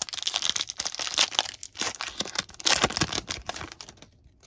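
Foil wrapper of a trading-card pack being torn open and crinkled: a dense run of crackling and tearing that thins out near the end.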